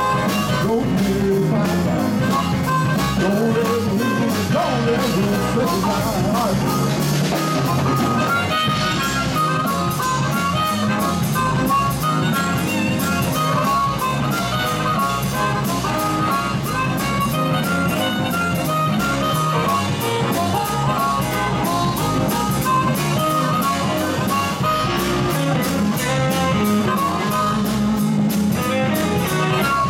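Live electric blues band playing: amplified harmonica blown into a vocal microphone over electric guitar and a drum kit keeping a steady beat.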